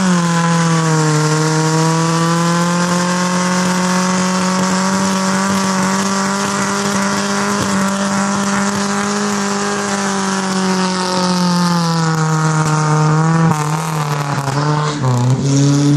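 Trabant's engine held at high, steady revs in a burnout, its spinning front tyres hissing and squealing on the asphalt. The revs climb right at the start, hold for about thirteen seconds, then drop and waver near the end.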